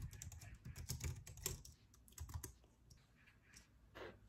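Typing on a low-profile computer keyboard: a quick run of light key clicks that thins out to a few scattered taps after about two and a half seconds.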